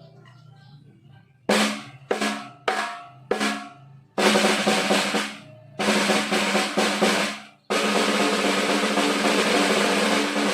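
Mapex Pro M 13x3.5 snare drum: after a quiet moment, four single strokes about half a second apart, each ringing out, then two short rolls and a sustained roll that starts about eight seconds in.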